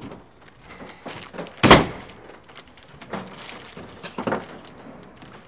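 Several separate knocks and thunks, the loudest about two seconds in, as the awning cassette is pushed and seated against its roof mounting brackets on the van.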